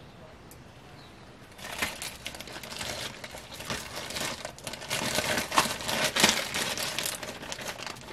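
Packing wrap crinkling and rustling as it is handled, starting after about a second and a half of quiet, with many small crackles and clicks.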